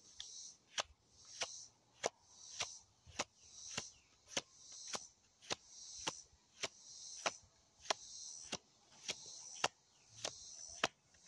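Deck of tarot cards being shuffled by hand: a sharp snap of cards about every 0.6 seconds in a steady rhythm, with a brief rustle of cards sliding between snaps.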